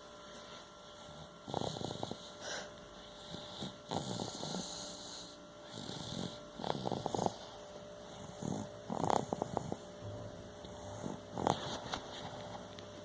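Snoring: a sleeper drawing rough, fluttering snores in a slow, even rhythm, about one every two and a half seconds, five in all.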